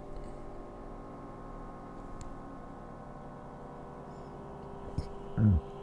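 Steady droning hum made of several held tones, with a faint click about five seconds in and a short low thud just after it.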